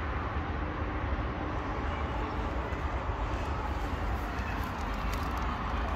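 Steady outdoor street background noise: a continuous low rumble with a hiss over it.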